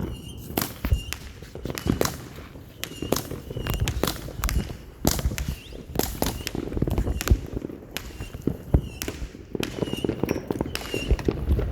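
Backyard consumer fireworks going off: a long run of sharp bangs and crackling pops, irregularly spaced and continuing throughout.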